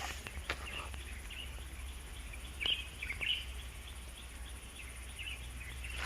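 Birds chirping in short, scattered calls over a steady low background rumble, with a few light clicks.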